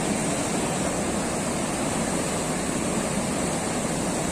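Rushing whitewater in an artificial canoe slalom channel: a steady, loud noise of fast churning rapids that does not let up.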